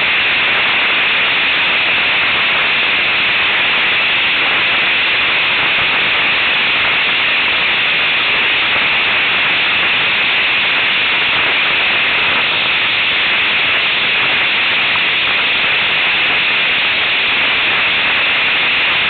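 Steady rushing hiss of wind and water spray from a windsurf board planing at speed.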